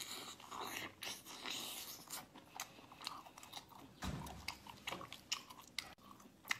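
Close-up chewing of a piece of mini octopus: wet smacking and squelching with many short clicks, and a low thump about four seconds in.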